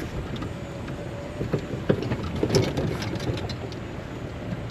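Heavy rain falling, with a steady low rumble under it and scattered taps and knocks that are busiest in the middle.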